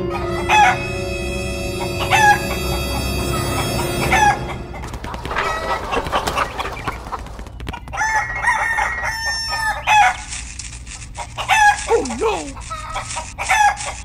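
Chickens calling: a rooster crowing and clucking in a series of separate calls.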